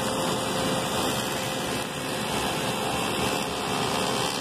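Spindle shaper running, its cutter head shaping the curved edge of a walnut workpiece fed by hand along a bearing and template: a steady, dense cutting noise over the motor's hum.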